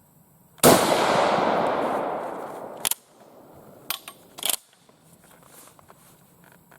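A single shot from a Swiss K31 rifle in 7.5x55 Swiss, about half a second in, with a long rolling echo that dies away over about two seconds. It is followed by a few short sharp clacks, the straight-pull bolt being cycled to eject the case and chamber the next round.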